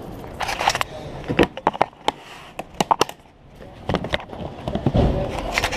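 TSA locks being put on a hard plastic rifle case: an irregular series of sharp clicks and knocks of the locks and handled case.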